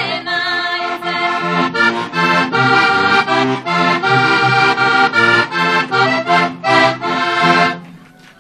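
Heligonka, a Slovak diatonic button accordion, playing a lively folk tune with chords over a rhythmic bass, ending on a final chord near the end.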